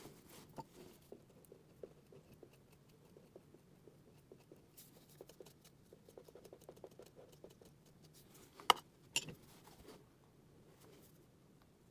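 Faint, small scratching and ticking of a fine tool working over the painted repair on a door casing while wood-grain lines are drawn in, with two sharper clicks about nine seconds in.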